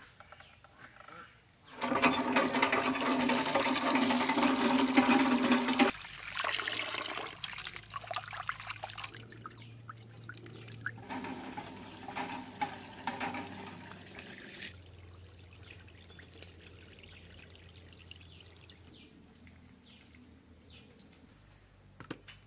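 Water from a hand pump gushing into a steel bowl. It is loudest for about four seconds, then comes in weaker spells that fade to a faint trickle.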